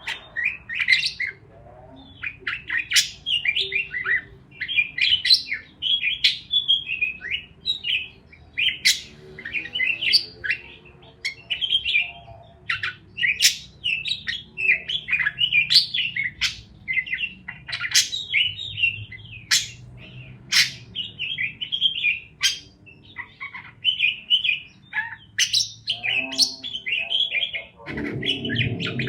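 Parakeets chirping continuously in a quick, dense run of high chirps with sharp clicks among them. A low noise joins near the end.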